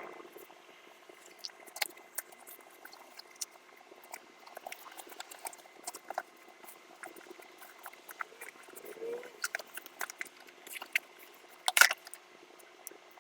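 Parts and packaging being handled: irregular light clicks, taps and rustles, with one sharper click near the end.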